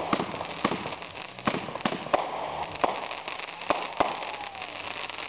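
Fireworks going off: sharp bangs and pops at irregular intervals, about eight in five seconds, over a steady crackle.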